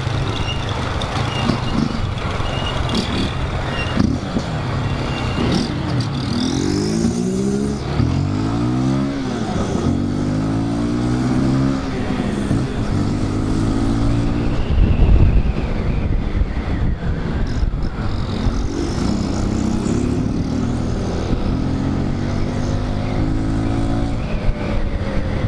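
Motorcycle engine under way, heard from on the bike: the revs climb and drop again and again as it is accelerated through the gears, with strong runs about six seconds in and again about nineteen seconds in. A low thump comes about fifteen seconds in.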